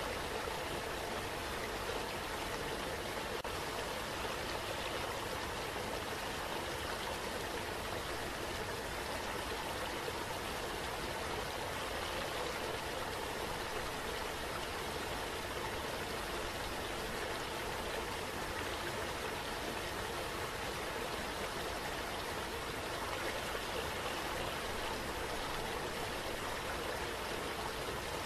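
Running water rushing steadily, an even splashing hiss with no breaks or changes, like a waterfall pouring into a pool.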